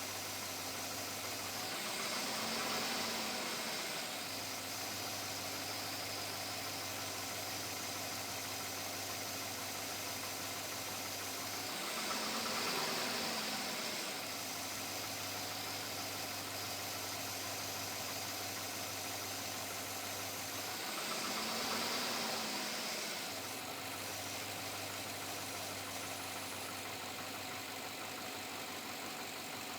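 2007 Chevrolet Avalanche's V8 engine idling, blipped up and back down three times, about ten seconds apart. It carries a persistent knock that the owner cannot tell apart from piston slap.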